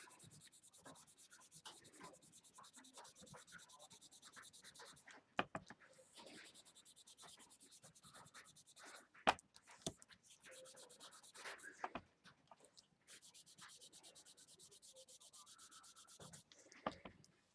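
Faint rubbing of an ink-loaded cotton ball across cardstock as ink is blended on, with a few light taps scattered through it.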